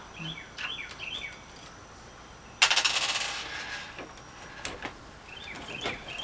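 A sudden jangling rattle of small metal parts a little under three seconds in, fading away over about a second. Birds chirp briefly before and after it.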